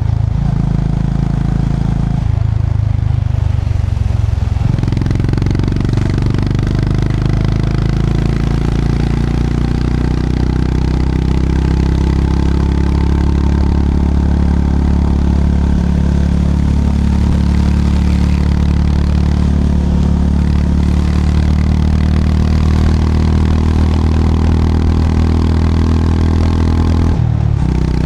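Short-geared motorcycle's engine and exhaust running steadily under way. The engine note changes about two seconds in and again a couple of seconds later, and dips briefly near the end, as with a gear change.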